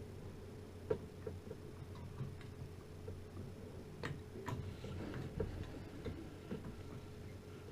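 Irregular small clicks and taps of hard parts being handled while a CPU cooler is fitted to a motherboard, the sharpest about a second in and a cluster of them in the middle. A steady low hum runs underneath.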